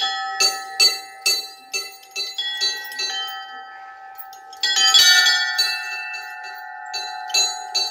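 Orthodox church bells rung by pulling their clapper ropes: small bells struck in a quick even rhythm, about two to three strokes a second, over the lingering ring of the middle bells. About five seconds in a heavier bell strikes, the loudest stroke.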